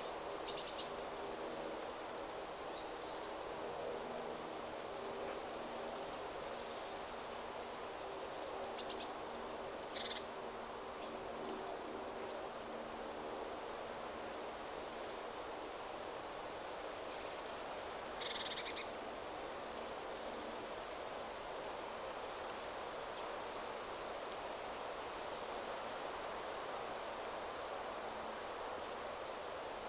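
Wind rushing steadily through forest trees, with a handful of short, high-pitched bird calls now and then. A faint low hum runs underneath for the first two-thirds, then fades.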